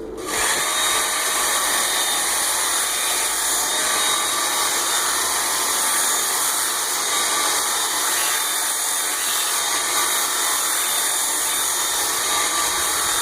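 Work Sharp Ken Onion Edition belt sharpener running, its 120-grit belt grinding the bevel of a steel axe head: a steady grind that starts suddenly and holds even throughout.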